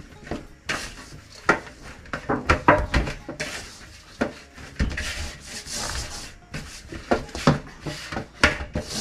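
Chapati dough being kneaded by hand in a stainless steel bowl: irregular thumps and squishing as the dough is pressed and folded, with rubbing of hands and dough against the floury metal and occasional knocks of the bowl.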